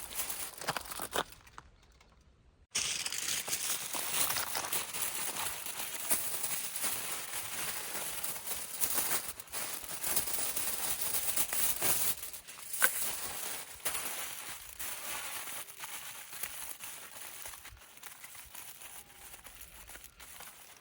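Aluminium foil crinkling and rustling as it is handled, with a brief pause about two seconds in.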